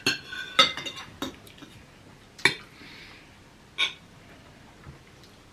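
Cutlery clinking against plates and bowls while eating: about five sharp, irregular clinks with a short ring.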